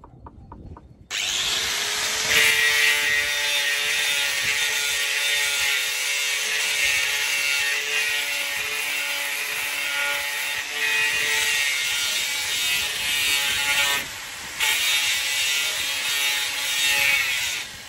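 Electric angle grinder with an abrasive disc, switched on about a second in and grinding old paint and rust off a metal post. It runs steadily, eases off briefly about three-quarters of the way through, then stops just before the end.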